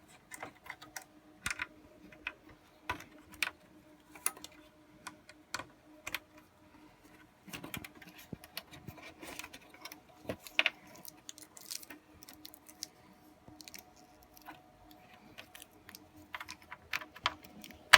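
Irregular small clicks, knocks and rattles of hands working inside a server chassis, plugging cables and connectors back onto the motherboard, with a sharp click at the very end. A faint steady hum sits underneath.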